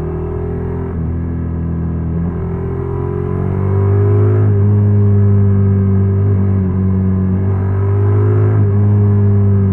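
Honda NC750X's parallel-twin engine running with a steady, even note, getting louder about three and a half seconds in and holding there, with slight dips in pitch twice.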